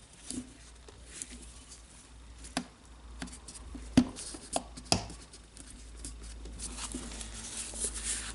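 Hands handling small parts of a Makita DGA452 cordless angle grinder during reassembly: scattered light clicks and taps, with the sharpest click about four seconds in.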